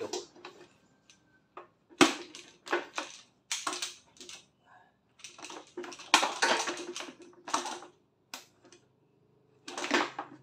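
Black hose and power cord being handled and piled onto a plastic pressure washer standing on a steel platform scale: irregular clattering and rustling in a string of short bursts with brief pauses between them.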